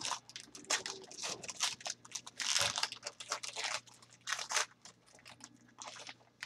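A trading card pack's wrapper being torn open and crinkled by hand: a run of crackling rustles, loudest about two and a half seconds in.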